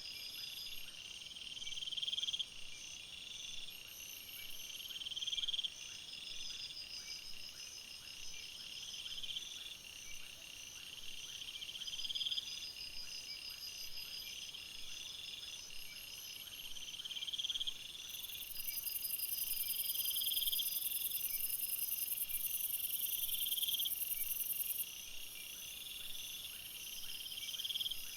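Jungle insect chorus: a buzzing call that swells and cuts off about every two seconds over steady pulsing trills, with a loud, very high-pitched buzz joining from about two-thirds of the way through and stopping shortly before the end.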